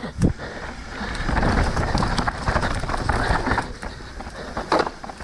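Mountain bike descending a rough trail: tyres rolling and crunching over dirt and rock, the bike rattling over bumps, with wind rushing on the camera microphone. A sharp knock comes near the end.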